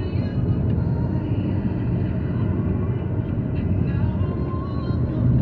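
Car driving at road speed, heard from inside the cabin: a steady low rumble of tyres and engine.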